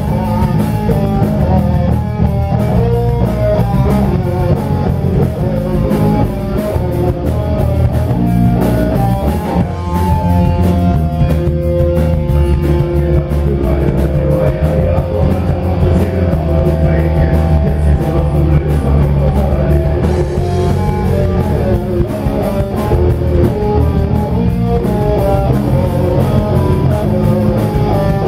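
A rock band playing: electric guitar over bass and drums, loud and steady throughout.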